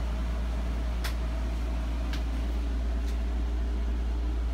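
Steady low hum of a Fan-Tastic Fan roof vent fan running in a small camper, with three light clicks about a second apart.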